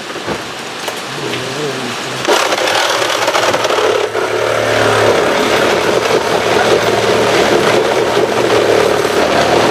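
A loud, steady motor-driven machine starts abruptly about two seconds in and keeps running.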